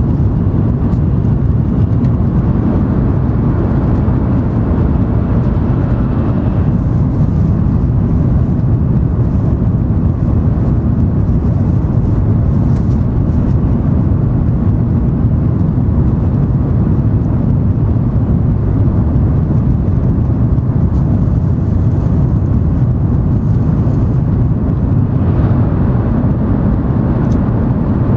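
Cabin noise inside an N700 series Shinkansen under way: a loud, steady low rumble from the running gear and the air rushing past. The upper hiss thins about seven seconds in and comes back near the end.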